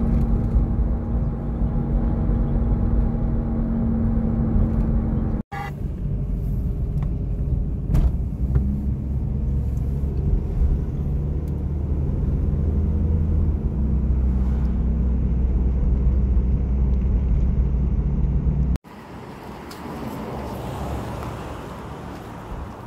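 A car driving along a road: a steady engine drone with tyre and road rumble, broken off abruptly twice. Near the end it gives way to quieter outdoor street ambience.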